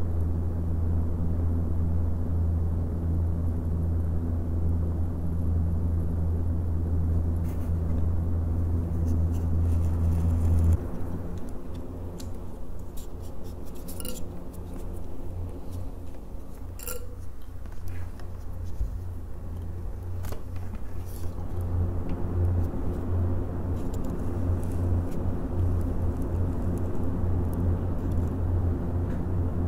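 Four Noctua NF-A14 PWM 140 mm PC case fans running on USB power: a steady airy hum with a low droning tone. About a third of the way in the hum drops and thins, a few light clicks follow, and it builds back up toward the end.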